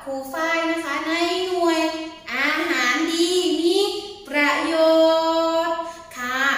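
A woman singing a short Thai children's song in three phrases, each ending on a long held note.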